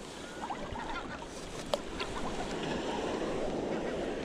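Sea water lapping and sloshing around an inner-tube fishing float, with a few small knocks and one sharper click about a second and a half in.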